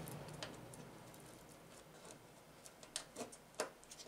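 A few faint clicks and taps of a small screwdriver against a TV's circuit board and metal chassis: one about half a second in, then three close together near the end.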